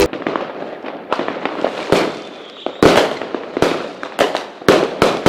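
Fireworks sound effect: a rapid series of sharp bangs, each trailing off in crackle, several of them close together.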